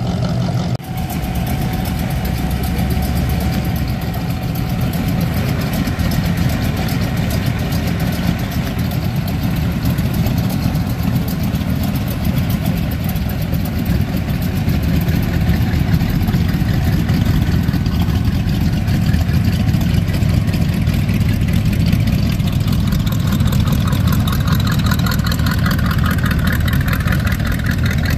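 Hot-rod and classic-car engines running at a slow crawl with a steady low exhaust rumble, among them a rat-rod pickup with an exposed engine and side-mounted exhaust pipes.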